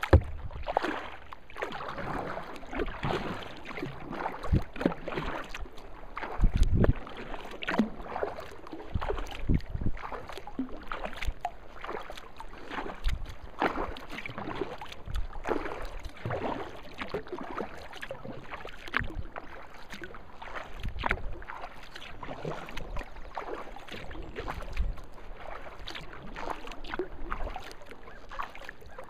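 Kayak paddling on calm lake water: repeated paddle strokes with small splashes and drips, irregular, about once a second.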